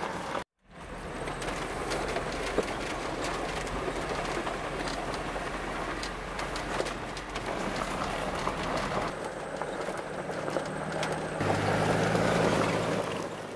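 Off-road vehicle driving along a rough forest road: the engine runs steadily under tyre noise and many small knocks and rattles from the bumps, and the engine grows louder near the end.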